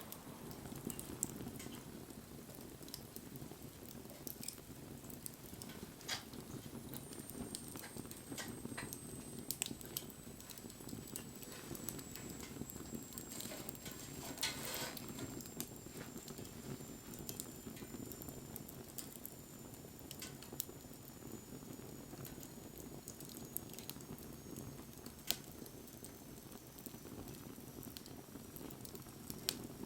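Wood fire burning: a steady low rush of flames with scattered crackles and sharp pops. A faint high whistle slowly falls in pitch from about a quarter of the way in.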